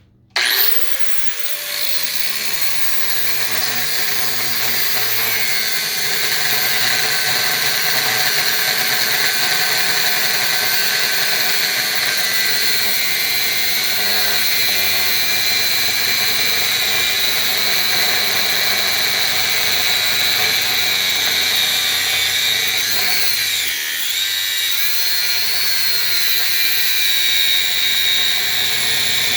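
Grinder with a cut-off wheel cutting through a gearbox shaft: a steady high-pitched whine that starts abruptly about half a second in, with the pitch sagging briefly about two-thirds of the way through as the wheel bites under load, then recovering.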